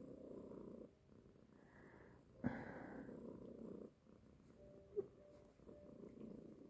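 Domestic tabby cat purring while being stroked. The purr is faint and comes in phases of about a second or more, with short pauses between breaths, and there are a couple of brief faint clicks.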